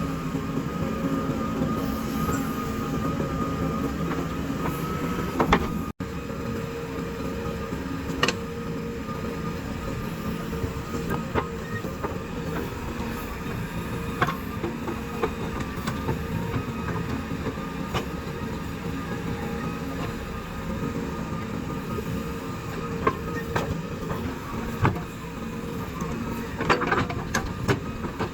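Heavy diesel machinery running steadily: a JCB 3DX backhoe loader's engine at work, with sharp metallic knocks and clanks now and then from the digging and loading.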